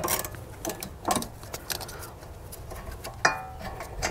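A few scattered metallic clicks from a hand ratchet and 14 mm socket as the loosened caliper bracket bolts are run out, with a sharper metal clink about three seconds in.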